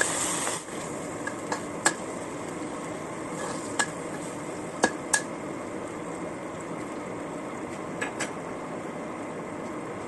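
Metal spatula stirring and scraping stir-fried minced chicken in a wok, with several sharp clinks as it knocks the pan, over a steady sizzle that drops slightly about half a second in.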